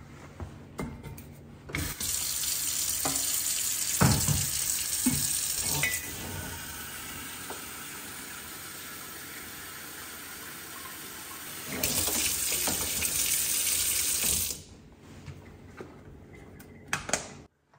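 Pull-down kitchen faucet running water into a glass cold brew jar through a stainless-steel filter of coffee grounds. The flow is louder for the first four seconds, softer for about six, then louder again for about three before it is shut off. A few knocks from the jar and filter come early, and light clinks near the end.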